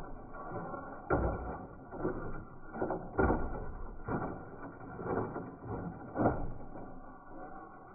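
WPL C24 1/16-scale RC crawler truck's electric motor and gearbox whirring as it crawls down wooden steps. About six separate clunks come as its wheels and chassis drop from step to step.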